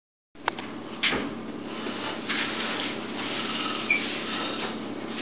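Steady hum and hiss of a home-video room recording, with two sharp clicks in the first second and soft knocks and rustling, plus a brief squeak near the end.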